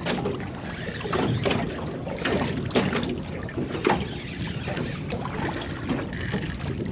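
Wind buffeting the microphone over water slapping against the hull of a small boat drifting on a choppy sea, with irregular splashy slaps about every second.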